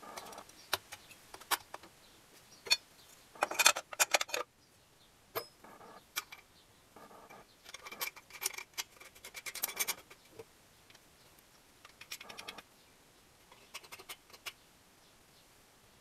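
Light metallic clicks, clinks and rattles of a carburettor being handled and fitted onto a motorcycle engine by hand. They come in several short clusters with quiet gaps, the loudest about four seconds in.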